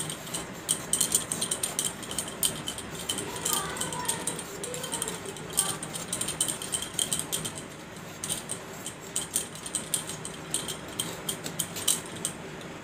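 Green hog plums being peeled and cut on an upright boti blade: an irregular run of small clicks, scrapes and ticks as the blade cuts the firm peel and flesh, with light clinks from glass and metal bangles.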